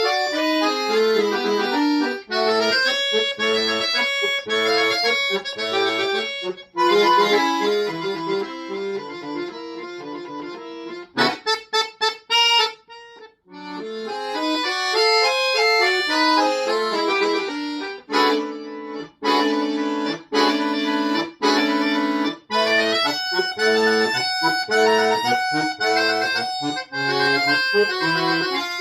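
Solo accordion playing a fast, busy passage of quick notes and chords. About eleven seconds in comes a run of short, detached chords, then a brief pause, and later some longer held chords.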